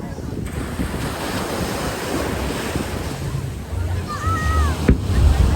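Wind buffeting the microphone over a steady rush and low rumble at a fireworks display. Near the end comes a short whistle, then a single sharp bang.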